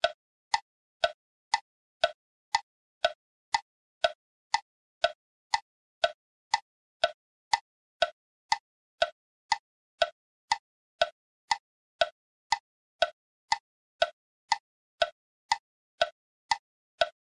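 Tick-tock sound effect: short pitched ticks about two a second, alternating between a lower and a higher note, with silence between them.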